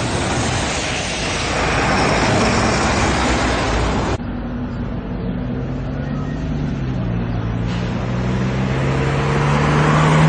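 Road traffic at a checkpoint. At first there is a steady rush of road noise, and after a cut about four seconds in, vehicle engines are heard. A heavy truck's engine rises in pitch and grows louder near the end as it approaches.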